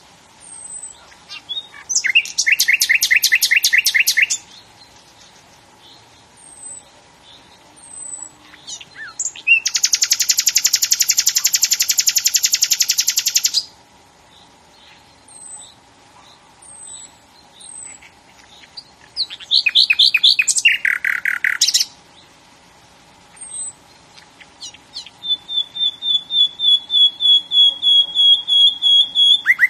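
Songbird singing: loud phrases of fast-repeated high notes, each two to four seconds long, with short high chirps between them. The last phrase near the end is a steady run of identical notes that grows louder.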